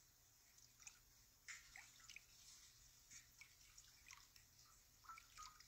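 Faint water drips and small splashes falling from a hand into a shallow bath basin: an irregular scatter of short plinks, busiest about a second and a half in and again near the end.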